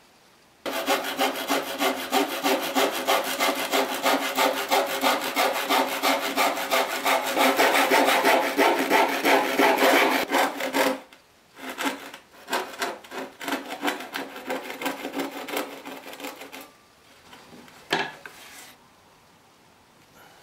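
Handsaw cutting through a pine board in a steady run of rapid push-pull strokes. After about 11 s the strokes become shorter and broken as the cut is finished, stopping around 17 s, and a single knock follows a second later.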